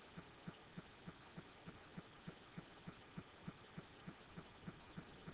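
Near silence with a faint, even ticking about three times a second under low room hum.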